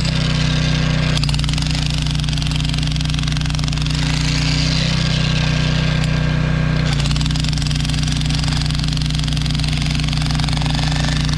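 Mophorn 3600 W electric demolition hammer running continuously, its bull-point chisel hammering rapidly into concrete. The tone shifts slightly about a second in and again about seven seconds in.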